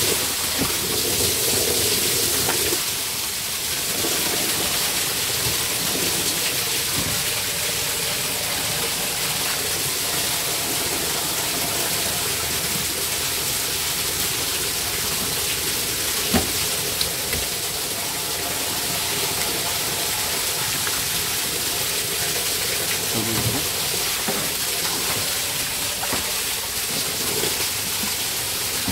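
Water running steadily from a hose onto a wet fish-cleaning board, with a few short knife clicks and scrapes as a rockfish is scaled and gutted.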